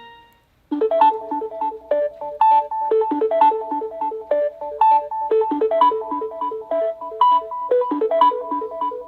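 Samsung Galaxy Note 20 Ultra stock ringtone playing: a fast, looping melody of short, bright notes that starts just under a second in, after the tail of the previous tone dies away.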